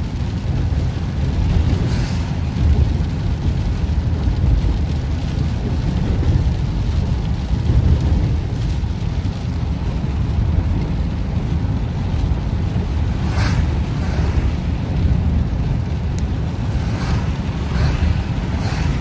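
Road noise inside a moving car on a rain-soaked road: a steady low rumble of tyres and engine, with a few faint, brief swishes.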